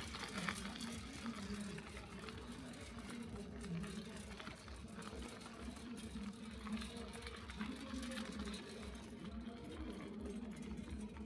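A small engine running steadily with a low, slightly wavering hum, over a low rumble.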